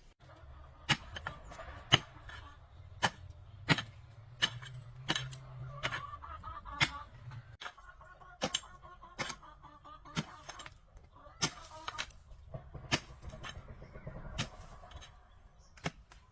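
Repeated sharp knocks, about one or two a second at an uneven pace, over a low hum that stops about halfway through.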